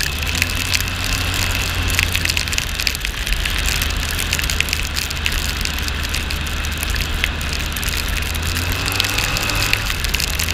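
The engine of a small open vehicle runs steadily on the move, under a constant rush of wind and road noise with scattered ticks. Near the end the engine pitch shifts.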